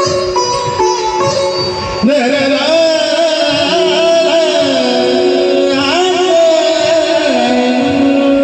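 Sanai (shehnai) music: sustained, stepped notes at first, then from about two seconds in an ornamented melody of sliding, wavering notes over a steady lower held note.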